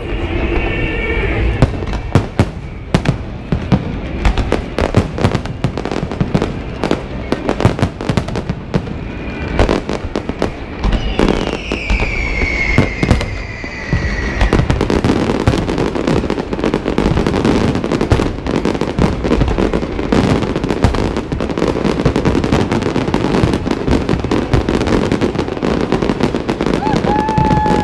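Aerial fireworks display: a loud, dense barrage of shell bursts, bangs and crackle with no let-up, and a falling whistle about halfway through.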